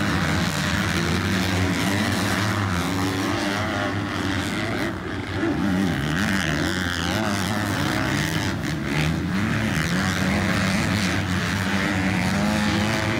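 Several motocross bikes racing on the dirt track, their engines revving up and down through the gears and overlapping.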